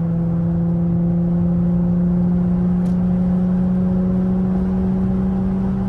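Infiniti Q50's engine and exhaust droning steadily as heard from inside the car, the pitch climbing slightly as the car gently speeds up.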